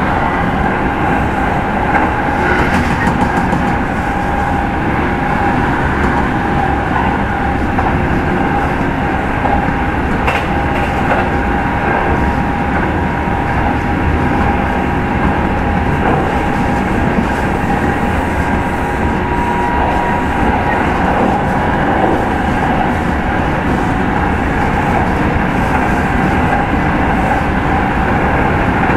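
Kintetsu 30000 series express motor car running at speed, heard from inside the car: a steady rumble of wheels on rail under a steady motor and gear whine, with a few clicks as the wheels cross rail joints.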